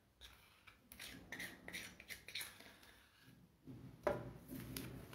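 Light clicks, taps and rustles of small craft pieces being handled and set down on a stone tabletop, with the sharpest tap about four seconds in.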